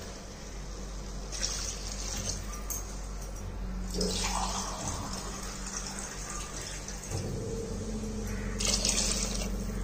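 Water poured from a steel tumbler into a pressure cooker of soaked basmati rice, splashing in over the rice in separate pours a few seconds apart: glassfuls measured in to cook the rice.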